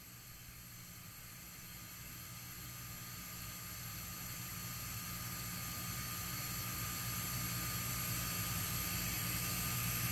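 Steady machine-shop background hum and hiss, slowly growing louder. The thread gauge turning in the hole makes no sound that stands out.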